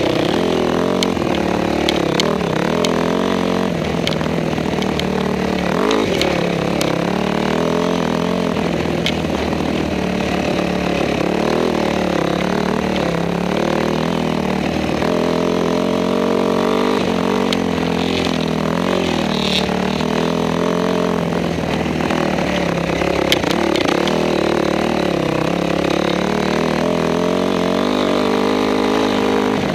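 Honda CRF250R's four-stroke single-cylinder engine running hard on board, the revs rising and falling over and over with the throttle and gear changes. A few sharp knocks are heard along the way.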